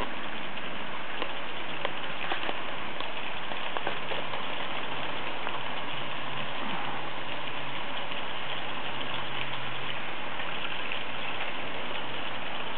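H0 scale model trains running on the track: a steady rolling rattle of metal wheels on rails with small clicks, and a faint low hum from about four seconds in until near the end.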